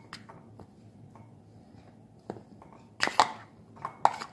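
Paneer cubes tipped from a crinkly plastic packet into a glass bowl: a few soft taps, then two louder rustling crinkles of the packet about three and four seconds in.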